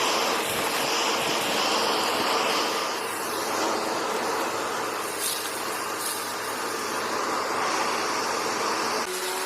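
Upright vacuum cleaner running with a steady rushing motor and suction noise. The tone shifts about three seconds in and changes abruptly near the end.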